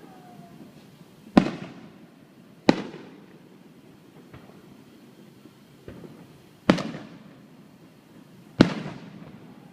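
Fireworks exploding: four loud, sharp bangs at uneven intervals, each trailing off in an echo, with a couple of fainter pops between them.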